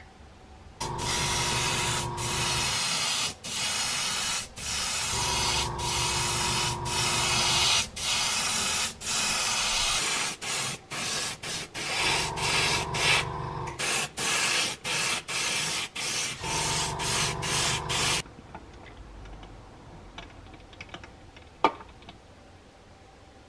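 Airbrush spraying paint in a long run of hissing passes, cut by many short pauses as the trigger is let off, with a steady hum in some stretches; it stops about eighteen seconds in, followed by quiet handling and one sharp click near the end.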